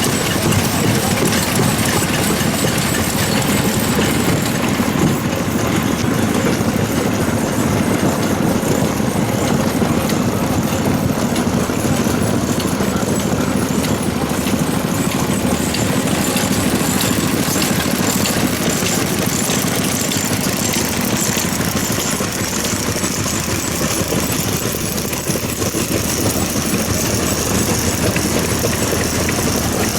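Vintage stationary farm engines running steadily with a dense, even firing beat.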